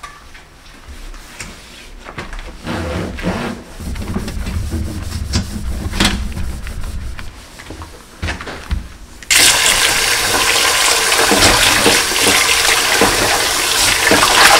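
Cloth rubbing on a kitchen countertop with scattered knocks. About nine seconds in, a kitchen faucet is turned on and water pours loud and steady into a stainless steel bowl in the sink.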